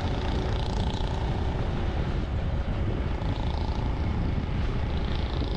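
Onboard riding noise from a Honda Cross Cub at cruising speed: wind buffeting the microphone over the steady running of the bike's small single-cylinder four-stroke engine.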